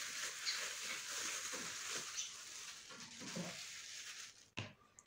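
Thin plastic bag crinkling and rustling as marinated shashlik meat is tipped out of it into a plastic bowl, with a single knock near the end.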